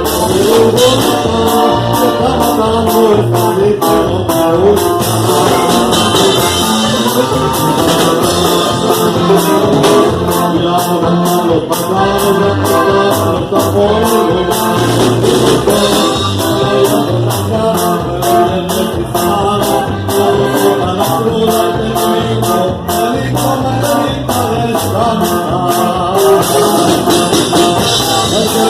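Banda-style Mexican music with brass and trombone over a steady beat, with singing.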